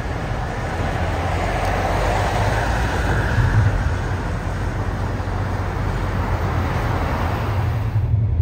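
Road and wind noise from a moving car, a steady rushing hiss over a low rumble, which cuts off abruptly near the end.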